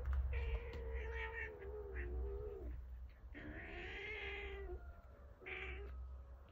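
A cat crying during play-wrestling between a mother cat and her tabby kitten: two long, drawn-out, wavering cries, then a short one near the end.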